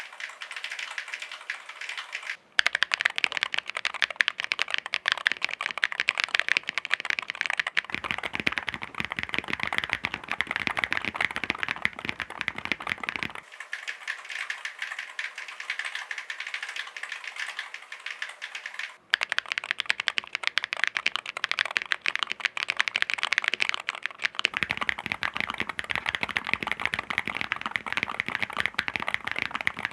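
Fast, continuous typing on a Chilkey ND75LP low-profile mechanical keyboard: a dense stream of key clacks. The sound breaks off for a moment and changes character about two and a half seconds in, and again around nineteen seconds.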